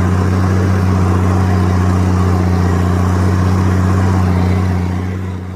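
Large Valmet tractor's diesel engine running steadily with a low, even drone while working a land plane, fading out near the end.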